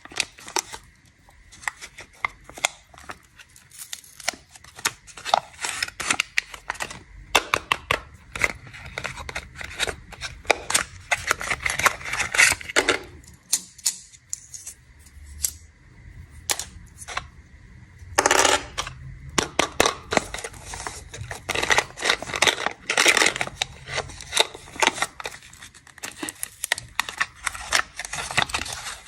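Plastic snack wrappers crinkling and crackling as they are unwrapped and handled close to the microphone, a dense run of sharp crackles with brief lulls.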